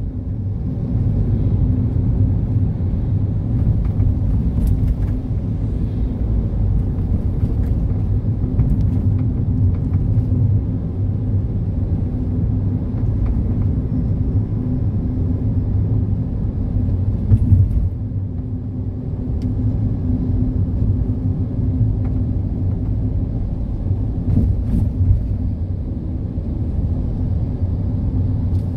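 Steady low engine and road rumble heard from inside a moving vehicle's cabin, with an even hum under it and a few faint ticks, briefly louder about two-thirds of the way through.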